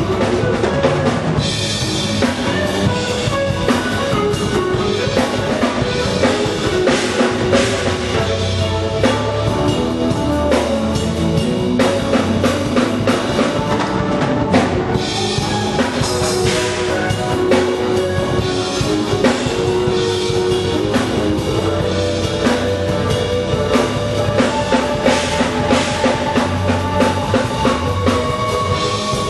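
Drum kit played in a continuous rock groove of bass drum, drums and cymbals, over music with sustained chords that change every few seconds.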